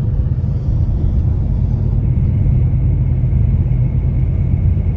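Steady low rumble of a car driving at highway speed, heard from inside the cabin: road and engine noise.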